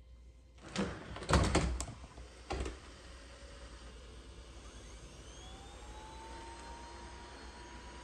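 DreameTech D10 Plus robot vacuum leaving its self-emptying dock: a few clunks over the first three seconds as it backs off the base. Then its suction fan spins up, a rising whine that levels off into a steady whir as it starts mapping.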